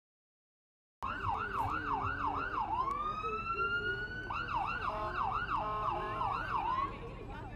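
Emergency vehicle siren starting about a second in, switching between fast up-and-down yelping sweeps and a long rising wail, with a short stretch of stepped tones near the middle.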